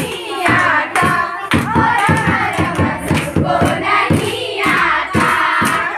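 A group of girls singing together over quick, steady hand-clapping and the beat of a dholak hand drum.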